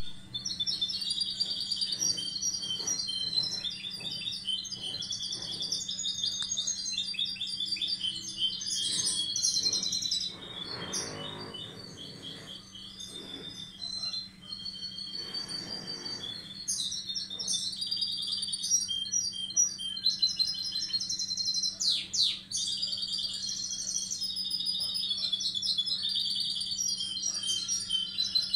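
Goldfinch hybrid (mixto de jilguero) singing a long, rapid, high twittering song, with a quieter lull about ten seconds in. A low steady hum runs underneath.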